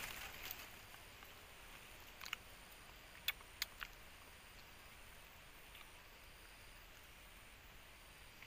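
Near silence: faint outdoor background with a few soft clicks about two to four seconds in, and a faint very high tone that pulses on and off evenly.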